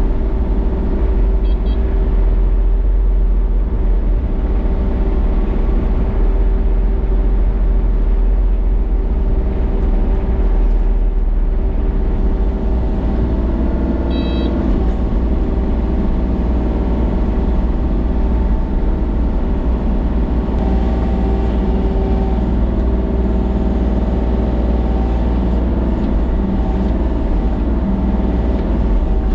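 A motor vehicle's engine running loud and steady at an unchanging speed, with a deep rumble. A brief faint high chirp comes twice, once early and once about halfway.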